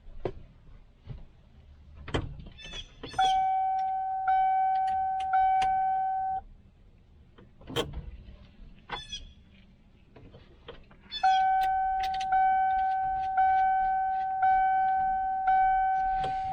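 1997 Ford F-350's dashboard warning chime dinging about once a second in two runs, three chimes and then five. Metallic clicks and rattles come between the runs.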